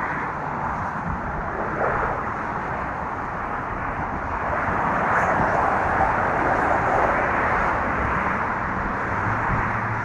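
Traffic passing on the bridge: a steady rush of passing vehicles that swells about halfway through, mixed with wind.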